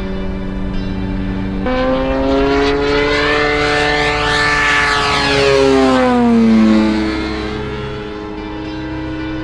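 3W 70 R2 inline twin-cylinder two-stroke petrol engine of a radio-controlled model plane in flight, running at high throttle. About two seconds in, the tone jumps to a new steady pitch. The plane then makes a fast low pass, and the engine note drops sharply in pitch as it goes by, before settling lower and quieter as the plane climbs away.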